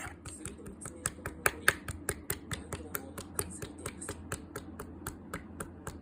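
Slime being pressed and pulled by fingers, making a quick run of wet sticky clicks at about five a second, the loudest a little over a second in.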